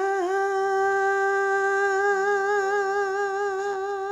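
A woman's gospel solo voice holding one long sung note with steady vibrato on the word "all", sung into a handheld microphone.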